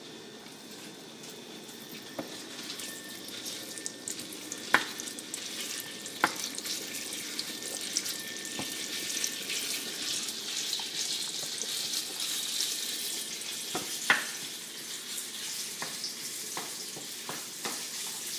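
Ground pork sizzling in hot vegetable oil in a small frying pan as a wooden spatula stirs it. The sizzle builds over the first several seconds and then runs steadily, broken by a few sharp knocks of the spatula against the pan.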